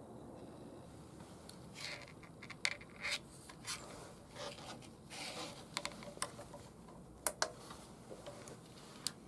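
Hands working on a battery charger during a repair: scattered rubbing and scraping with sharp clicks, the sharpest a pair about seven seconds in.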